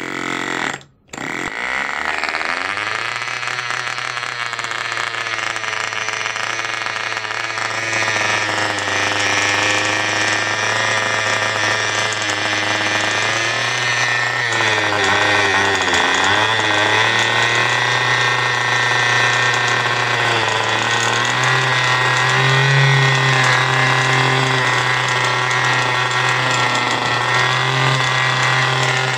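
Cox .049 model engine run as a diesel, turning a mini generator steadily. Its pitch sags briefly about halfway through, then recovers. The owner believes the flywheel is out of balance.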